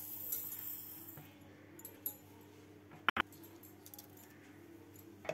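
Granulated sugar poured into a stainless steel mixer-grinder jar, a brief hiss of sliding grains at the start. Afterwards it is faint, with a few small ticks and a sharp click about three seconds in.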